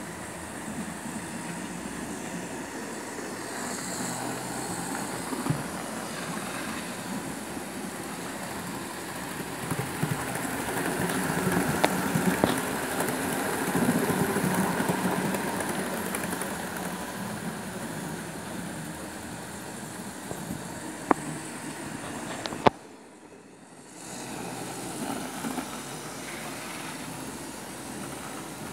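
Model train running along the track, its small electric motor whirring and wheels rumbling, growing louder as it passes close and then fading. A few sharp clicks are heard, and the sound briefly drops away about two-thirds of the way through.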